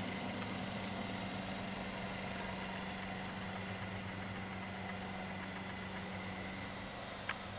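Chevy crate 350 V8 engine in a 1946 Chevy pickup running with a steady, even hum and no revving, growing slightly quieter. Two short sharp clicks come near the end.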